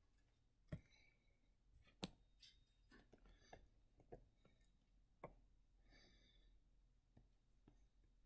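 Near silence broken by a few faint, scattered clicks and taps, with a faint brief high chirp about six seconds in.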